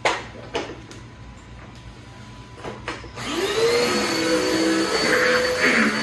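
A few short knocks, then about three seconds in an upright vacuum cleaner is switched on: its motor spins up with a rising pitch and settles into a steady run with a high whine as it is pushed over a plastic whelping-box floor mat.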